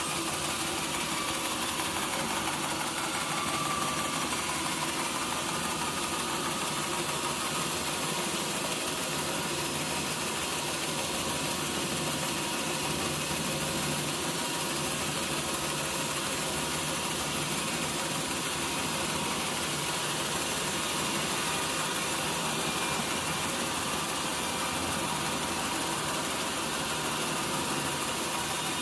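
Sawmill machinery running steadily: an engine-like drone under a constant high hiss, with no pauses or changes.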